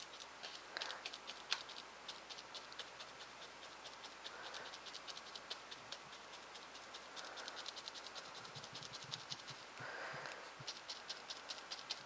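Stiff paint brush dabbing and scratching paint through a plastic stencil onto watercolour paper: a quick, fairly even run of small ticks, several a second, with a few longer brushing strokes.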